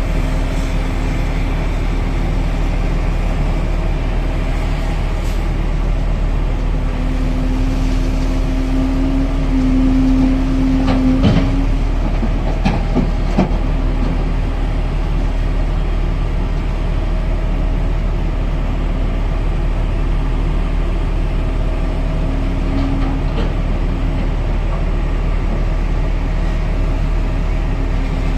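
Volvo EC950E crawler excavator's diesel engine and hydraulics working under load: a steady heavy drone with a whine that strengthens about eight to eleven seconds in. A few sharp knocks follow between about eleven and thirteen seconds in, rock dropping into the steel bed of the haul truck.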